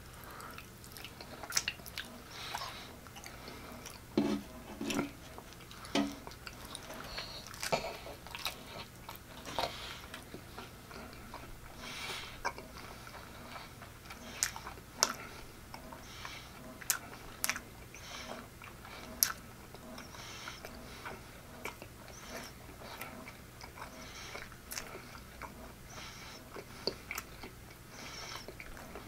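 Close-miked eating sounds of a person chewing a soft flour-tortilla pork-chop taco: wet chewing, lip smacks and finger-licking, with many short sharp mouth clicks.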